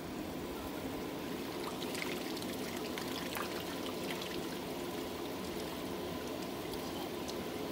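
Water running and trickling on an inflatable backyard water slide, with scattered light splashes in the first half, over a steady low hum.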